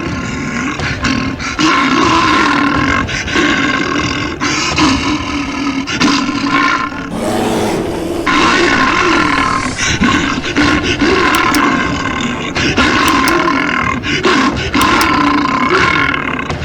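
Bear growling and roaring in a long run of rough, loud calls, with a brief breathier, hissing stretch about halfway through.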